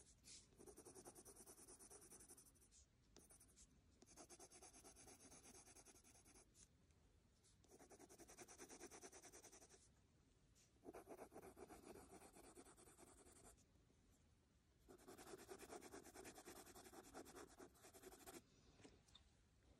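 Prismacolor Parma Violet coloured pencil scratching on paper: five spells of back-and-forth shading strokes, each two to three seconds long, with short pauses between, blending the violet layer underneath. Faint.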